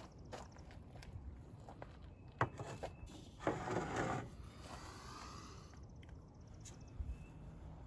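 Faint handling noises: scattered small clicks and scrapes, then a longer rough scrape or rustle about three and a half seconds in that fades away.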